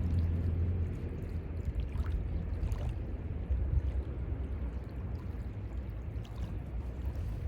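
Mediterranean sea water washing and lapping at the shore, with a heavy low rumble under it and a few faint splashy ticks.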